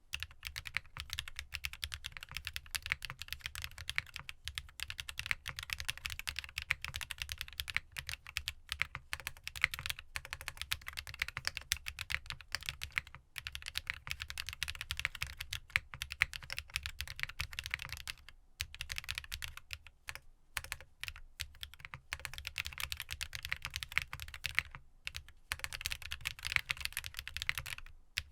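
Continuous fast typing on a gasket-mounted GEON F1-8X mechanical keyboard with factory-lubed Sarokeys Strawberry Wine linear switches, an FR4 plate, no foam and DMK Vintage ABS double-shot keycaps. The keys make a high-pitched bottom-out clack with little top-out noise. The typing pauses briefly a few times in the second half.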